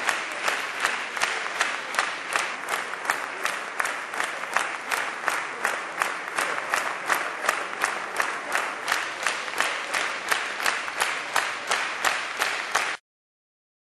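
Concert audience applauding, the clapping falling into rhythmic unison at about three claps a second. The sound cuts off suddenly near the end.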